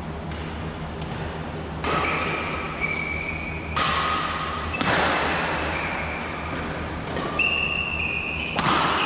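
Badminton rally: several sharp racket hits on the shuttlecock a second or two apart, with short high squeaks of shoes on the court floor between them.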